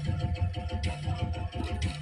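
Music with a fast, heavy drumbeat under steady held tones.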